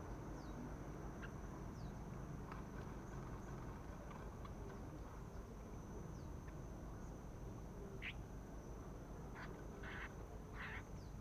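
Faint, thin bird chirps, short high notes falling in pitch, over a steady high whine and low background rumble. A few brief scratchy noises come near the end.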